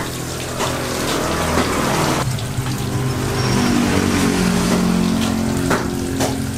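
Water running from a garden hose and splashing over chunks of raw beef in a plastic tub as they are rinsed.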